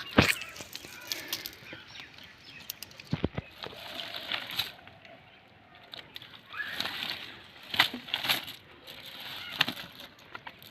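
Freshly caught fish flapping in a cast net, with irregular wet slaps and short bursts of splashing.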